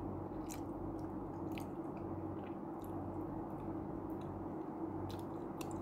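A person chewing food with the mouth closed, with a few small wet clicks and smacks, over a steady low hum.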